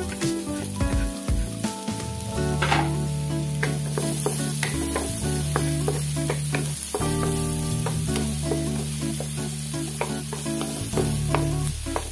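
Chopped onion and garlic sizzling and popping in hot oil in a nonstick pan as they are sautéed, stirred with a wooden spatula. Background music with held notes plays underneath.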